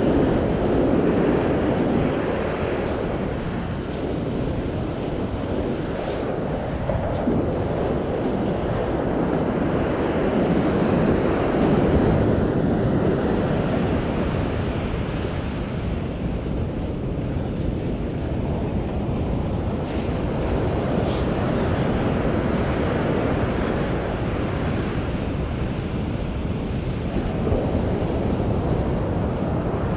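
Ocean surf breaking on a sandy beach, a continuous wash that swells and eases as the waves come in, with wind rumbling on the microphone.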